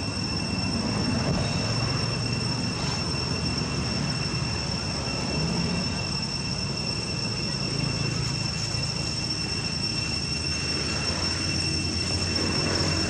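Steady high-pitched insect drone, one unbroken whining tone with a fainter higher overtone, over a constant low rumble of background noise.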